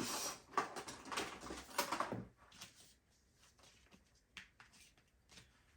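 Butter slime being squished and pulled in the hands: a soft, crackly, sticky squishing for about two seconds, then only a few faint clicks.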